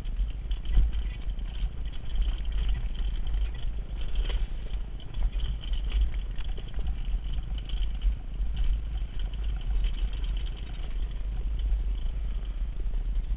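Wind rumbling on a bike-mounted camera's microphone, with the clatter and rattle of a mountain bike rolling fast over a dirt singletrack.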